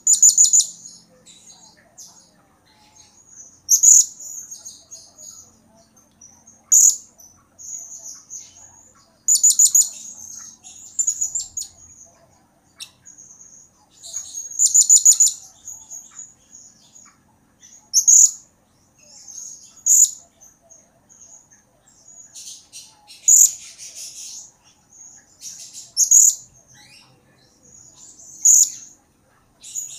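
Blue-crowned hanging parrot (serindit) calling: high, thin chirps and short rapid trills, in bursts every two to three seconds.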